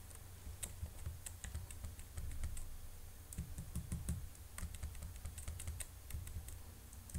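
Computer keyboard keys being pressed repeatedly, faint irregular clicks as the cursor is moved down through a text file, over a low steady hum.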